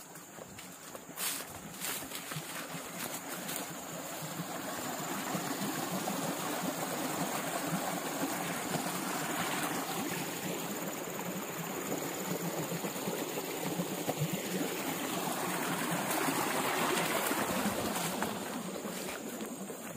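Flowing water rushing steadily, growing louder toward the end and easing off at the close, with a thin steady high tone above it and a few sharp clicks about a second in.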